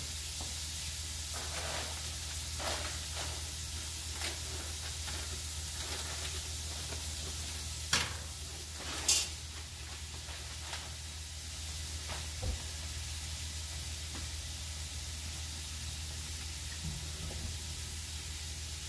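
Chopped bacon frying in a pot on a gas stove: a steady sizzle. Two short, loud, sharp noises come about eight and nine seconds in.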